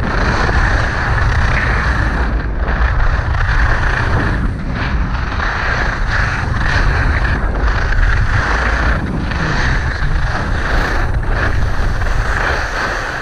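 Steady rush of wind on a GoPro Hero 5's microphone, mixed with the hiss and scrape of skis sliding and turning on hard-packed snow at speed. It eases off a little near the end as the skier slows down.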